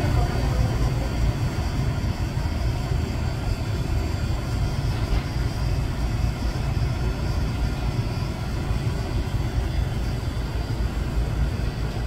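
A steady low rumble, like running machinery, with no alarm horn or tone pattern heard.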